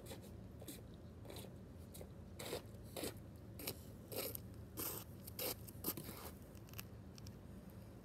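Sneaker footsteps scuffing and crunching on an asphalt driveway, about two steps a second, coming up close.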